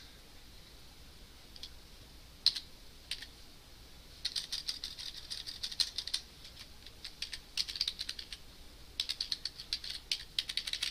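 Computer keyboard being typed on: a few single keystrokes, then quick runs of keystrokes from about four seconds in, broken by short pauses.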